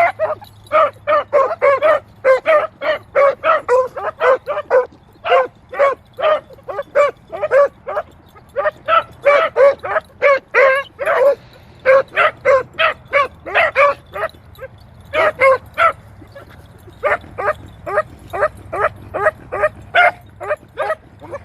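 Beagles barking while tracking a rabbit: short, pitched barks several a second, in runs broken by brief pauses.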